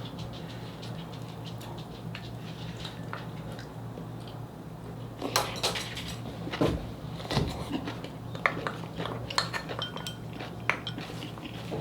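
Metal eating utensils clinking and scraping against a pan and dishes during a meal, sparse at first and then a run of sharp clinks from about halfway in, over a steady low hum.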